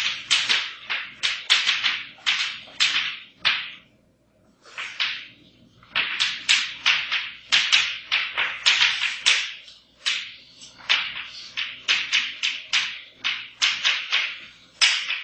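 Chalk writing on a blackboard: quick scratchy strokes and taps, several a second, with a short break about four seconds in and another around ten seconds.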